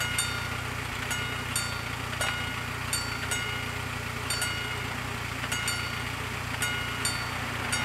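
Two level-crossing bells striking out of step with each other, each strike a short ringing ding, about two strikes a second between them at uneven spacing. A steady low hum from a waiting car's engine idling runs underneath.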